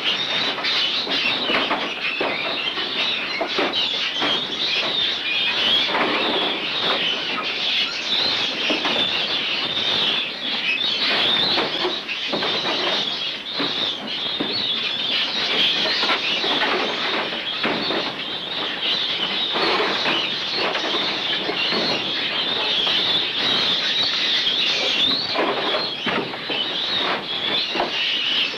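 Many caged farmed mink squealing and chattering all at once, a dense, continuous chorus, with short rattles of the wire-mesh cages being opened.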